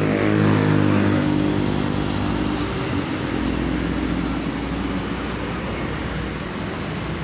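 A motor vehicle passing close by. Its engine note is loudest in the first second or two and then fades, leaving steady road noise.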